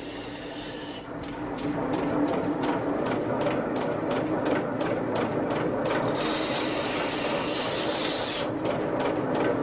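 Steel knife blade being ground against a revolving wet grindstone (water stone) to smooth its faces: a scraping hiss that pulses about three times a second, becomes continuous for a couple of seconds around the middle, then pulses again, over a steady hum from the machine.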